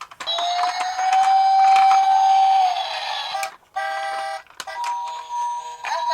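Toy police minicar's electronic siren sounding: a wailing tone that rises slowly, holds, then drops about three seconds in, followed by a short buzzy note and a steady higher beep. Scattered sharp clicks and rattles run through it.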